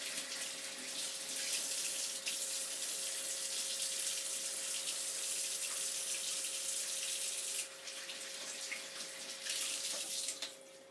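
Water running from a tap. It runs steadily, stops about three-quarters of the way in, comes on again briefly and cuts off near the end.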